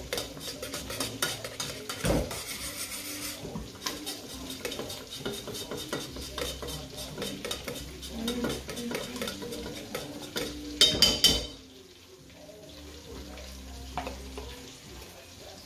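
A metal spoon stirs honey and mustard in a stainless steel saucepan, with steady clinking and scraping against the pan and a burst of louder clinks about eleven seconds in. Then the stirring stops, leaving a faint sizzle of butter cooking in a frying pan.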